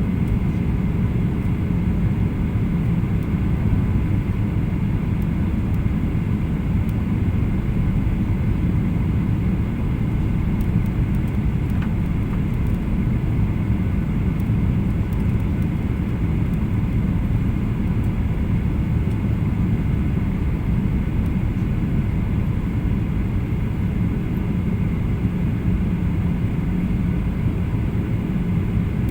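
Cabin noise inside a Boeing 737-800 in flight: a steady low drone from its jet engines and airflow, with a faint steady whine above it.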